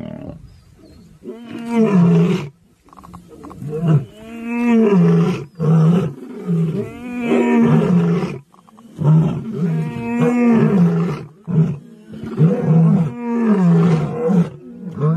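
Male lion roaring: a series of about seven low roars, each rising and then falling in pitch, with short pauses between them.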